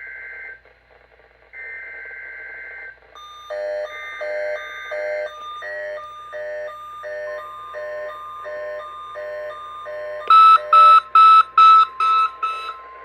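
NOAA Weather Radio SAME test: three bursts of the digital header data tones, the warbling two-tone squawk of a Specific Area Message Encoding header. They are followed by a weather-alert receiver beeping about twice a second. The steady 1050 Hz weather-radio warning tone starts about seven seconds in, and the beeps get louder near the end.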